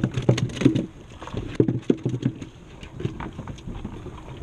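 Irregular knocks and taps of handling on a kayak while a caught mangrove snapper is measured, thickest in the first second and again around two seconds in.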